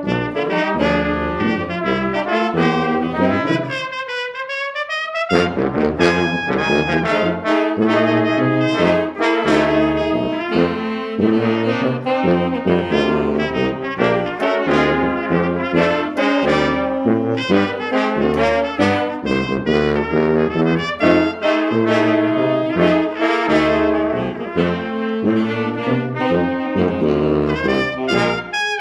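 A high school brass-led instrumental ensemble playing, with trumpets and trombones over a pulsing bass line. About four seconds in the low parts drop out for a moment, then the full band comes back in.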